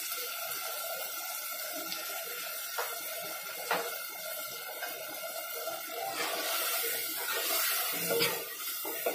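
Steady hiss of a pot cooking on a gas stove, just after curd has been poured into the hot prawn masala, with a couple of light clicks. Near the end a spoon knocks against the pot as it is stirred.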